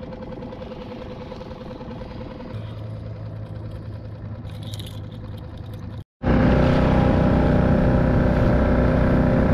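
Small outboard motor on a skiff running steadily at trolling speed. After a brief cut about six seconds in, it runs much louder as the skiff moves along.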